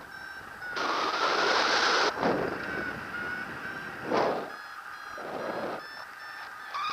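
Paraglider's audio variometer beeping a climb tone, a quick run of short high beeps, while wind rushes over the microphone in gusts, loudest from about one to two seconds in and again briefly about four seconds in.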